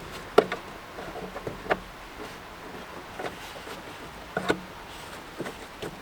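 Scattered sharp clicks and knocks from hands working the cabin (pollen) filter bracket and housing loose. The loudest comes about half a second in, and a close pair follows at about four and a half seconds.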